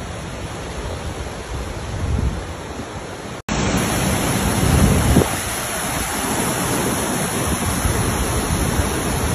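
Floodwater of the swollen Broad River rushing past, a steady loud hiss of moving water. The sound cuts out for an instant about three and a half seconds in and returns slightly brighter, with a louder low rumble shortly after.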